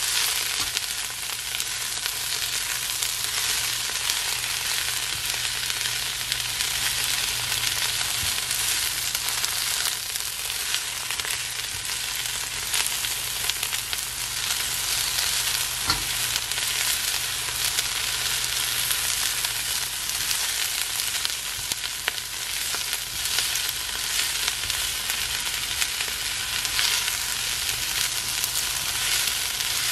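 Mixed vegetables sizzling in a hot wok as they are stir-fried, the spatula turning and scraping them through the pan; a steady crackling sizzle throughout with a faint low hum underneath and one light knock about halfway through.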